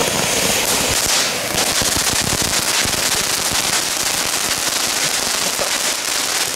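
Small Category 1 ground fountain fireworks spraying sparks: a steady hiss thick with fast crackling.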